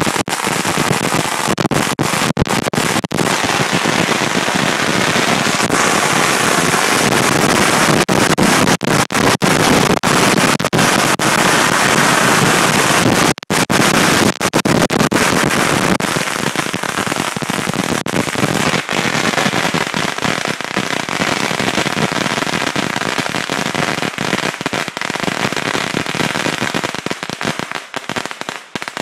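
A long string of firecrackers, tens of thousands strong, going off in a continuous, very loud rapid crackle. It breaks off for a moment about halfway through, then thins out near the end.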